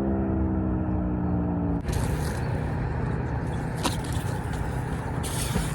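A passing road vehicle: its engine hum falls slowly in pitch and breaks off about two seconds in. Steady low traffic rumble and outdoor noise follow.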